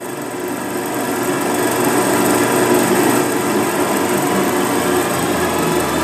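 Vintage film projector running, a steady mechanical whir of its motor and drive.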